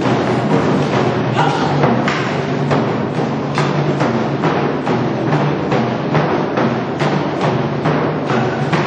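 Korean drumming ensemble playing live, a dense, steady rhythm of many drum strokes with the strongest beats about two to three times a second.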